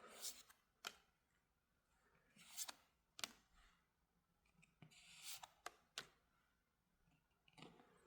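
Near silence with a few faint, short clicks and rustles of trading cards being handled and set down.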